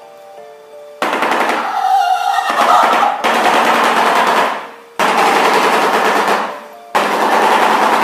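Shoebill clattering its bill: a loud, rapid machine-gun-like rattle of clacks. It comes in three bouts, each starting abruptly, the first about a second in. A faint simple background melody can be heard before and between the bouts.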